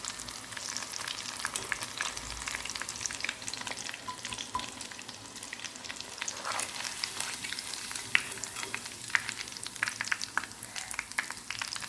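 Batter-coated fish pieces shallow- or deep-frying in hot oil: a steady sizzle with many fine crackling pops, as the pieces fry until crisp on both sides.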